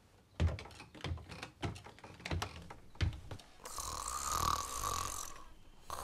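A run of irregular soft clicks and knocks, then a woman's long, raspy snore in her sleep, with her mouth open.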